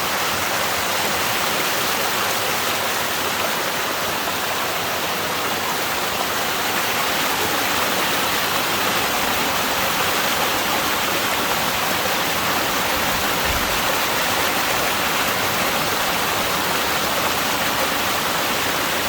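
Rain-swollen valley stream rushing, a steady loud flow of water.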